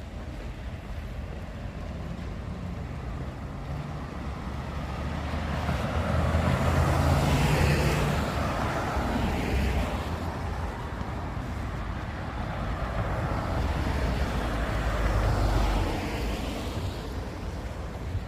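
Two road vehicles passing one after the other, each swelling up as it approaches and fading away, with a low engine hum under the tyre noise.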